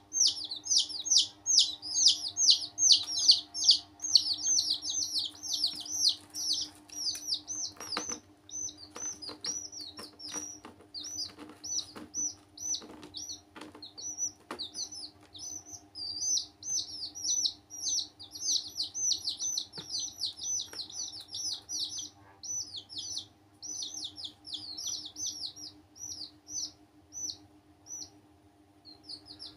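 Several baby chicks peeping continuously in quick high calls that each slide downward in pitch, busiest at the start. A run of light taps and scratches comes in the middle, over a faint steady hum.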